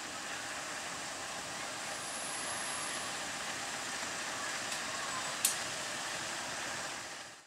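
KAI diesel-electric locomotive running steadily at close range, a steady engine and air noise with no change in pace, with one sharp click about five and a half seconds in.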